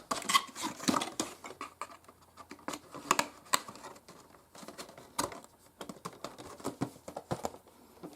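Scattered light clicks, taps and crinkles of model-plane packaging being handled, busier in the first second and then sparse.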